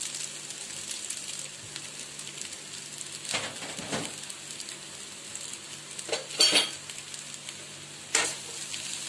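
Boiled noodles, just added to a pan of fried cabbage, onion and egg, sizzling steadily in hot oil. A few short knocks against the frying pan come through, the loudest about six and a half seconds in.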